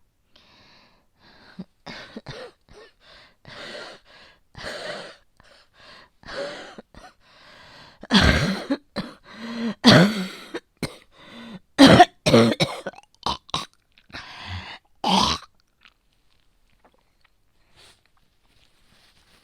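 A woman's phlegmy coughing fit with throat clearing: a long run of coughs that grow harder in the middle and stop after about fifteen seconds. It is the persistent, productive cough of a chest infection with heavy phlegm, which she puts down to a cold, asthma or bronchitis.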